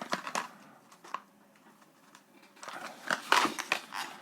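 Packaging being handled and opened by hand. A few light clicks come first, then from about two and a half seconds in a busy stretch of rustling, scraping and clicking.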